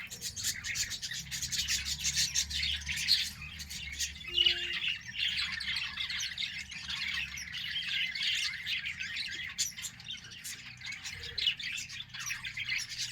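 A flock of pet budgies and lovebirds chattering and squawking nonstop, many fast, high calls overlapping.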